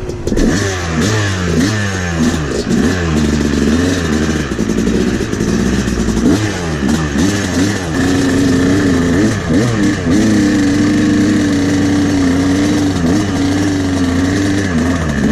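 Two-stroke Yamaha dirt bike engine being ridden off, its pitch rising and falling over and over with the throttle, then held fairly steady for several seconds in the second half.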